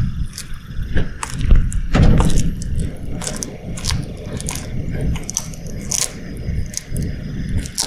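A bearded dragon chewing a small lizard held in its jaws, making a close, irregular run of crunches and cracks. Heavier thumps come about two seconds in.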